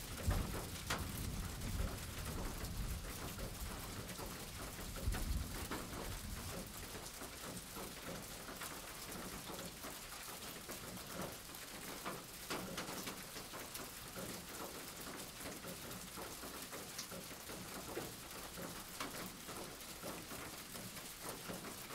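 Steady rain falling, an even hiss with scattered drop ticks. A low rumble sits under it for the first few seconds, then fades.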